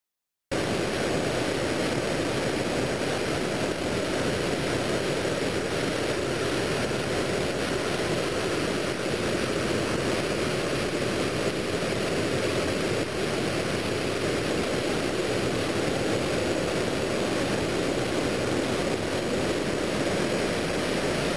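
Mountain creek in unusually high flow, about 86 cubic feet per second, rushing through whitewater over rocks as a steady, even rush. It starts abruptly about half a second in.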